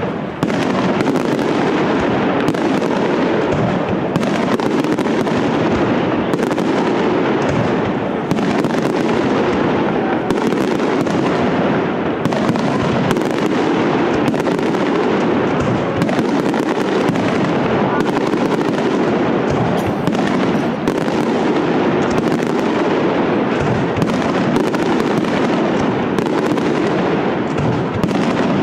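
Valencian castillo aerial fireworks show: a dense, unbroken barrage of shell bursts and crackling stars, with no pause.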